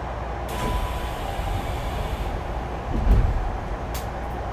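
Interior running sound of a Tokyu 5050 series electric commuter train as it comes to a stop at a station, with steady cabin noise throughout. A hiss rises about half a second in and fades out near the two-second mark. The loudest event is a low thud about three seconds in as the train halts, followed by a sharp click near the end.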